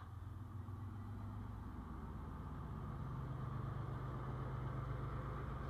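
2TE10M diesel locomotive's 10D100 two-stroke opposed-piston diesel engines running with a steady low drone, growing louder about three seconds in.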